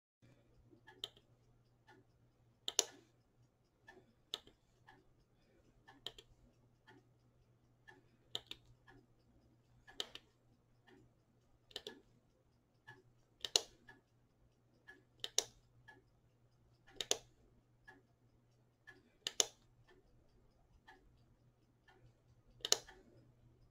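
An electric blanket controller clicking again and again, a click or a quick pair of clicks every couple of seconds, over a low steady hum. It is behaving erratically, which the owner suspects is a leaky capacitor that takes a while to charge up.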